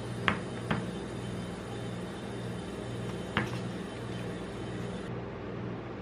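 Metal tongs and a paper cup clicking and tapping on a steel ice-roll cold plate: two sharp clicks in the first second and one more a little past three seconds. Under them, the steady low hum of the cold plate's refrigeration unit.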